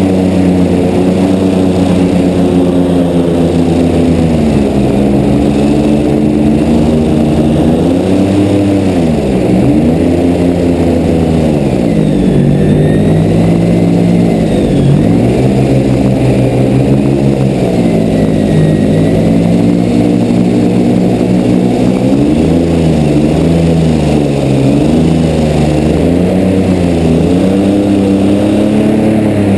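2015 Silver Dollar 20x8 airboat running under way, its engine and carbon-fibre propeller loud and steady, with the revs dipping and picking back up several times.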